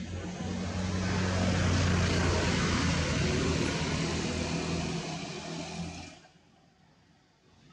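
A motor engine passing close by: it builds up, holds steady for a few seconds, then fades away about six seconds in. A similar engine sound starts to rise again near the end.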